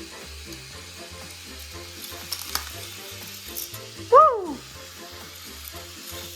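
Motorized K'nex roller coasters running: a steady crackling clatter from the plastic chain lifts and trains on the track, with a few small clicks.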